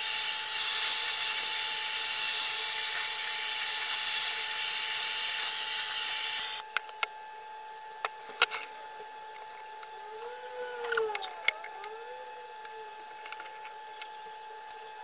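Handheld butane blowtorch burning with a steady hiss as it chars a wooden board, cutting off abruptly about six and a half seconds in. After that come scattered clicks and knocks as the board is lifted and set down on the bench, and two faint rising-and-falling squeaks near the end.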